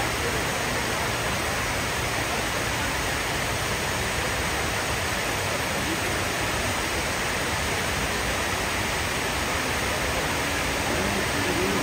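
Water cascading down the walls of the 9/11 Memorial's South Pool: a steady, unbroken rushing hiss.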